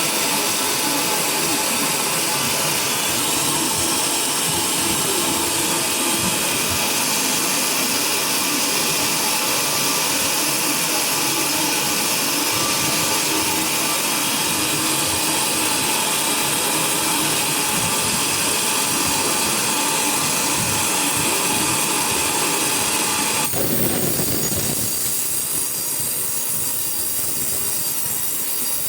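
Sawmill saw running and cutting through coconut wood with a loud, steady mechanical noise. About 23 seconds in the sound changes abruptly and turns a little quieter.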